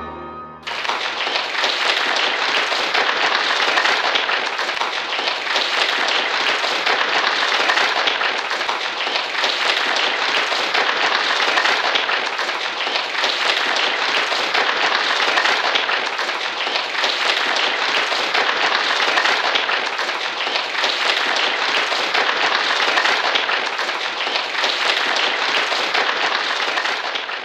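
The piano's last notes die away, then an audience claps loudly and steadily, dense applause that holds at one level and fades out at the end.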